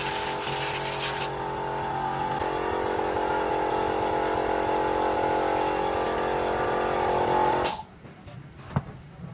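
A power tool's electric motor running at a steady speed, with a rough, hissing noise over it for the first second or so, then switched off, stopping abruptly near the end.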